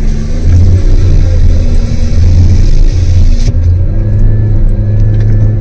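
Car engine running with a steady low rumble, heard from inside the car's cabin.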